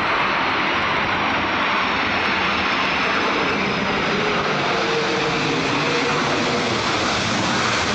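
Twin-engine jet airliner's engines roaring steadily as it rolls out along the runway after landing. A faint high whine slowly falls in pitch.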